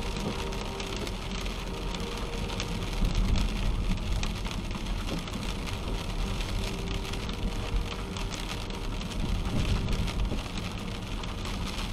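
Steady rain falling on a moving car's windshield and body, heard from inside the car, with the hiss of tyres on the wet road.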